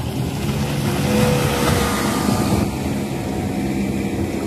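Outboard motor of a small fibreglass launch running steadily as it passes close by.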